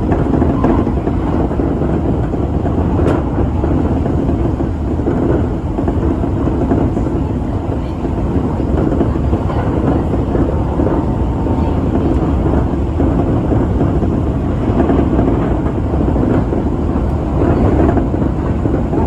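Tobu Railway electric train running at speed, heard from inside the front car: a steady, loud rumble of wheels on rail and running gear.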